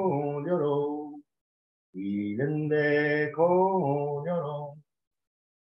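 A man singing a slow, unaccompanied Gaelic song, with long held notes that step up and down. There are two phrases with a pause of under a second between them, and the voice stops about a second before the end.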